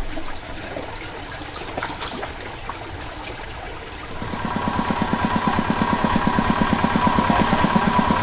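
A small engine comes in about halfway through, running at a fast, even beat and getting louder, over scattered clicks and background noise.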